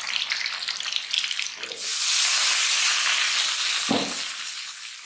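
Food sizzling in a hot pan: a crackling sizzle that swells into a loud, steady hiss about two seconds in, then slowly fades, with one dull thud near the end.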